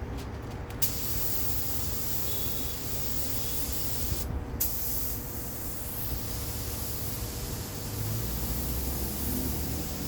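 Compressed air hissing steadily from an air tool, switched on just under a second in, cut off briefly about four seconds in and started again.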